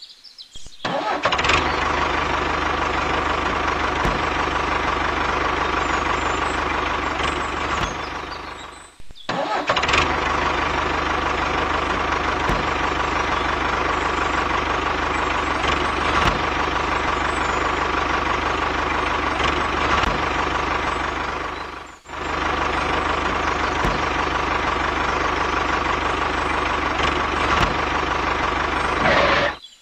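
Tractor engine running steadily, broken off briefly twice, about 9 and 22 seconds in.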